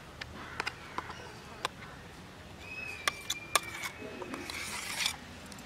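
Spoon knocking and scraping inside a stainless-steel mixer-grinder jar as thick ground chutney is scooped out into a leaf bowl: a scatter of sharp clicks, then a short scraping rasp near the end. A thin high whistle-like tone is held for about a second and a half midway.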